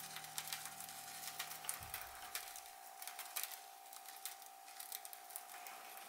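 Small round paper scraps sprinkled by hand onto a desk, landing as faint, irregular light ticks.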